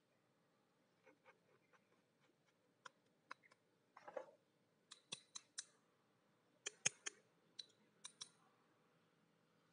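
Handling of a chrome motorcycle handlebar end weight: irregular sharp metallic clicks and taps, loudest around seven seconds in, with a brief rustle about four seconds in.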